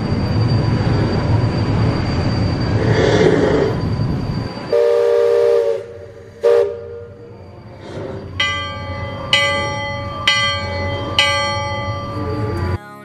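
Steam whistle of the Liberty Belle riverboat blowing two blasts, a long one of about a second and then a short one, after a steady rumble. Then the boat's brass bell is struck four times, about a second apart, each stroke ringing on.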